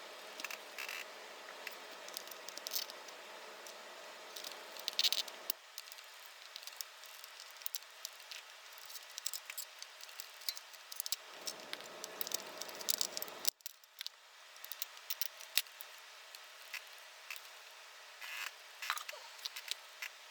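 Scattered small clicks and light rattles of hands handling tools and small parts during work on a portable radio, over a faint steady hiss.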